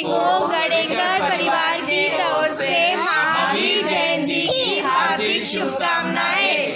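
A song sung in a high voice, with continuous melodic lines and no break.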